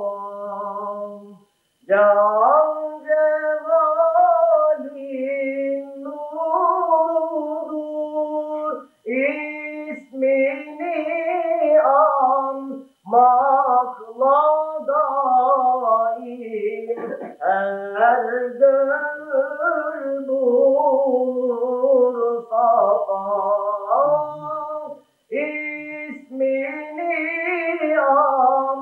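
A single voice chanting unaccompanied in long, ornamented melodic phrases, a Turkish mevlid recitation, with short pauses for breath between phrases.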